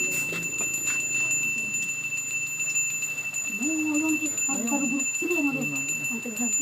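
Balinese priest's hand bell (genta) ringing continuously, a steady high bell tone without a break, with voices joining about halfway through.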